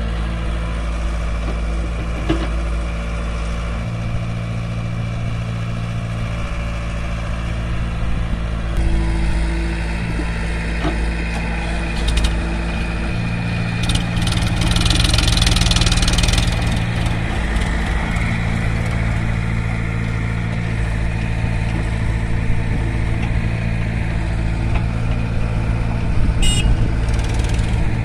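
Diesel engines of a Caterpillar 70B excavator and a Swaraj tractor running steadily. About halfway through, a rush of noise lasting a couple of seconds as a bucketful of mud is dumped into the tractor's trolley, and a few sharp knocks near the end.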